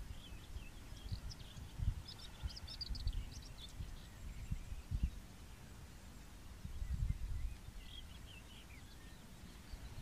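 Wind buffeting the microphone in low gusts, the strongest about two-thirds of the way through, with short high bird chirps and twitters now and then: a quick run of them about a third of the way in and a few falling notes near the end.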